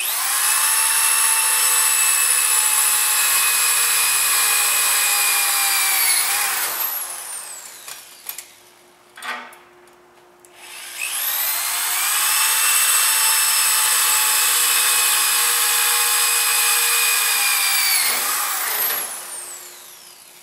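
Handheld electric drill on a portable drill-press arm, drilling upward into an overhead steel beam. The motor runs at steady full speed in two long runs, each winding down in pitch as the trigger is released, with a short knock in the pause between them.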